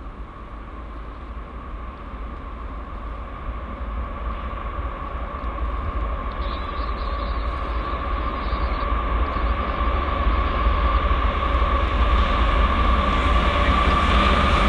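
Diesel-hauled train on the Norfolk Southern Pittsburgh Line approaching and growing steadily louder: a deep rumble with a steady high whine over it.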